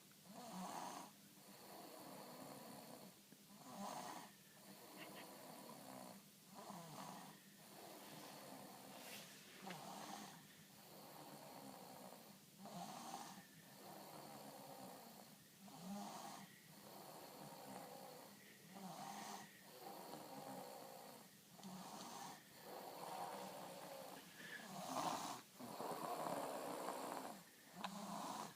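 Snoring in a steady rhythm, one snore about every three seconds, with the last few a little louder.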